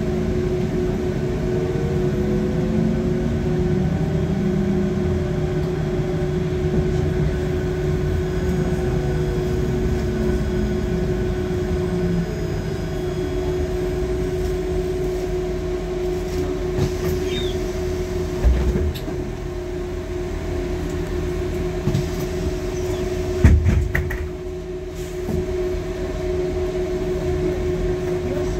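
Inside a Mercedes-Benz O405N2 city bus under way: the diesel engine and drivetrain run with a steady whine over a low road rumble, and the engine pitch rises and falls in the first few seconds. Two knocks come in the second half, the later one louder.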